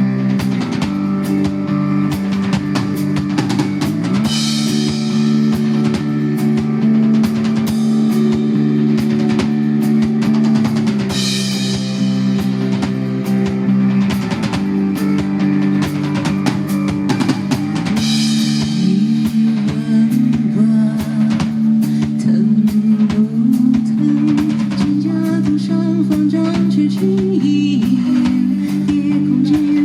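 Live band music: a drum kit keeping a steady beat with cymbal crashes about every seven seconds, over long held chords and electric guitar.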